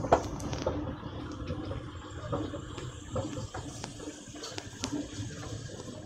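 Background ambience recording: a steady wash of noise with scattered clicks and knocks, the sharpest just at the start.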